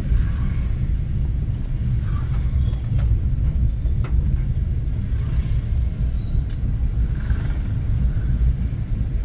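Steady low road and engine rumble heard inside a moving car's cabin, with a few faint ticks.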